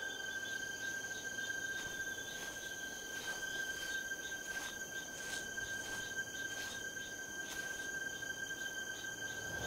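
A steady high-pitched ringing made of a few held tones, with faint soft ticks now and then.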